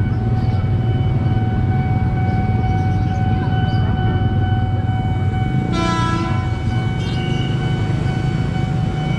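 Level-crossing warning alarm sounding steadily over a low rumble of traffic. About six seconds in, an approaching KRL electric commuter train sounds its horn once, briefly.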